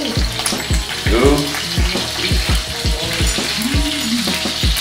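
Chicken pieces browning in olive oil in a skillet, sizzling steadily, under music with a deep bass beat.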